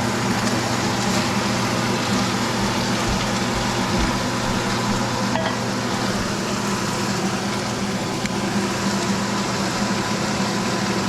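Shrimp deep-frying in hot oil: a steady, even sizzle over a constant low hum.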